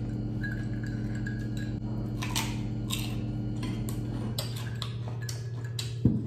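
Irregular crisp crunches and clicks of crispy fried chicken skin and bagnet being handled and chewed, over a steady low hum. A single dull thump comes near the end.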